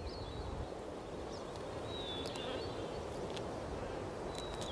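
Outdoor nature ambience: steady low background noise with a few faint, short, high bird chirps, one gliding downward about two seconds in.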